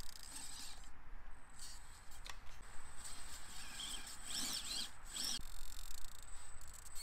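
Micro-scale RC rock crawler's small electric motor and gear drivetrain whining in short bursts under throttle, with the pitch rising and falling around the middle of the climb.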